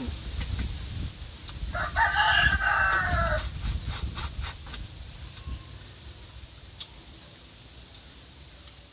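A rooster crowing once, a call of under two seconds, followed by a quick run of sharp clicks.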